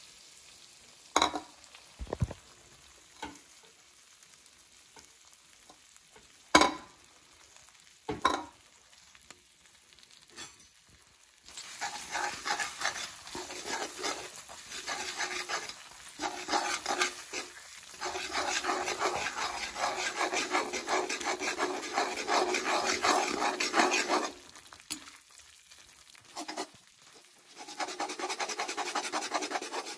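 Perforated metal spatula stirring and scraping melting jaggery in ghee around a wok, with a sizzle. A few sharp separate knocks come in the first several seconds. From about twelve seconds in, busy scraping strokes run on, pause briefly and start again near the end.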